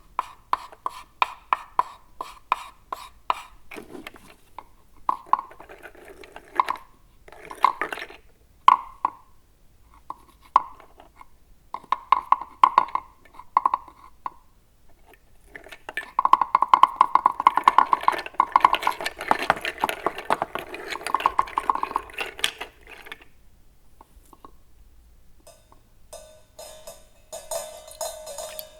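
Homemade foley sound effects for a baking animation: a run of short rattling, clicking and buzzing bursts. The longest and loudest comes about two-thirds of the way through, and a lighter, higher rattle follows near the end.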